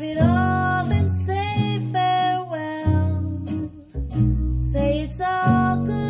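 A song played over a pair of stand-mount hi-fi speakers: a singing voice over plucked acoustic guitar and a bass line.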